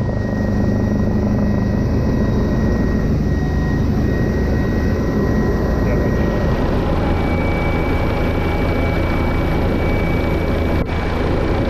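Rescue helicopter's engine and rotor heard from inside the cabin: a loud, steady drone with a constant high whine over it. The sound dips briefly near the end.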